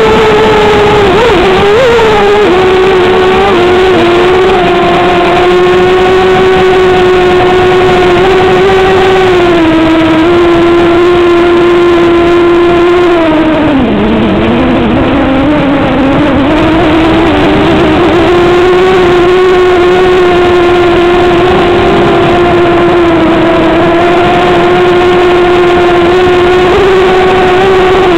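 Motor and propeller of a small radio-controlled aircraft, heard close from its onboard camera: a loud, steady whine with even overtones. The pitch holds fairly level, sags and wavers about halfway through, then climbs back.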